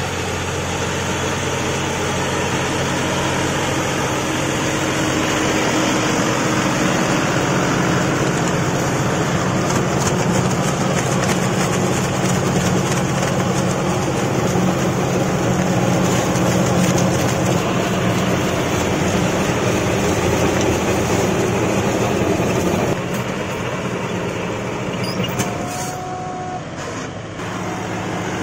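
A John Deere 5405 tractor's diesel engine runs steadily under load, driving a rear rotavator whose blades churn soil and banana crop residue. The sound eases off somewhat a little over three-quarters of the way through.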